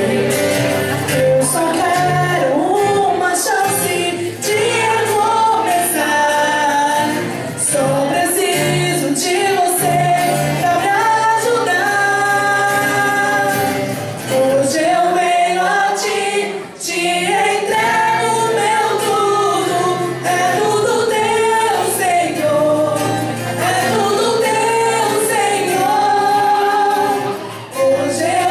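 Live Christian song, with singers carrying a sustained, gliding melody over instrumental accompaniment.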